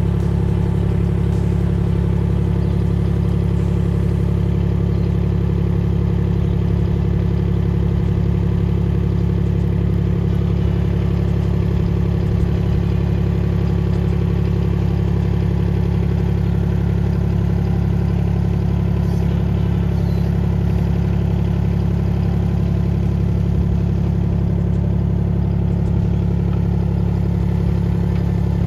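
Mini excavator's small engine running at a steady speed while the operator works the hydraulic control levers.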